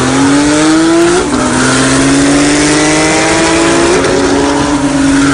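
Car engine at full throttle in a roll race, its pitch climbing steadily and dropping sharply at two upshifts, about a second in and about four seconds in.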